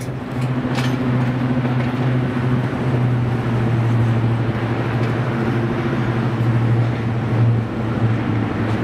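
Diesel locomotive engine running at a steady speed, a loud low hum with a steady tone that holds throughout.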